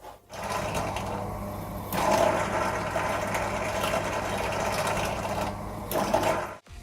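Electric drill running, boring a grid of holes in thin sheet steel for a silencer's perforated inner tube. It grows louder about two seconds in and stops shortly before the end.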